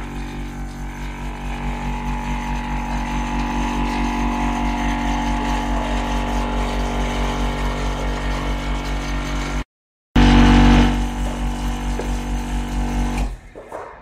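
Electric furnace lining vibrator running inside the steel former, a loud steady mechanical hum with a fast pulsing beat as it shakes the former to compact the dry refractory ramming mass. It breaks off briefly about ten seconds in, then drops away near the end.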